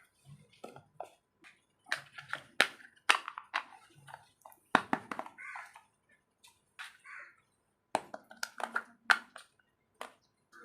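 Small toy kitchen pieces being handled and set down: a loose series of sharp clicks and light taps, with brief rustling in between.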